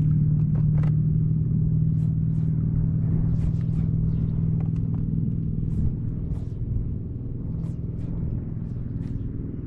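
Boat's outboard motor running steadily: a low, even engine hum that slowly gets quieter. A few faint ticks sound over it.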